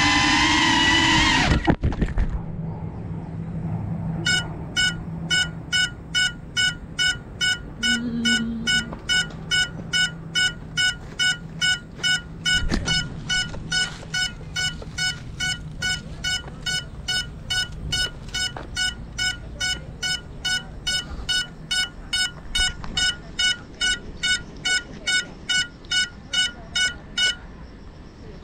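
GEPRC CineLog35 FPV quadcopter's motors whining at high speed, then cutting out abruptly with a few knocks about two seconds in. After a short pause the downed drone's beeper sounds a steady high beep about twice a second for over twenty seconds, the lost-model alarm, which stops near the end.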